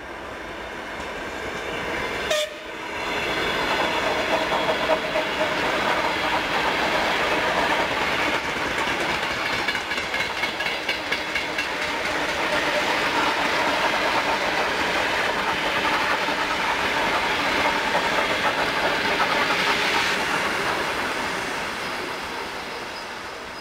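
A Soviet-era electric suburban train passes at speed. Its wheels rumble and clatter over the rail joints, building up, holding steady, and fading near the end. A brief sharp sound comes about two seconds in.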